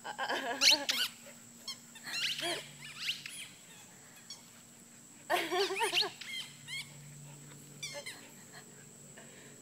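Dogs yipping and whining in play, in three short bursts of high, bending cries, with a few fainter ones near the end.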